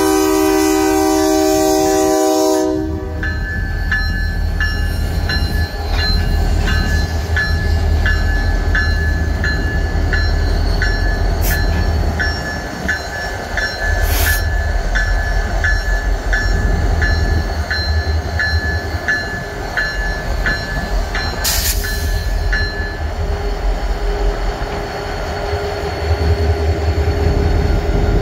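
Diesel freight locomotives' horn sounding a chord, cutting off about three seconds in. A warning bell then rings about one and a half strokes a second for some twenty seconds and stops, over the low rumble of the diesel engines passing slowly, with a few short clanks.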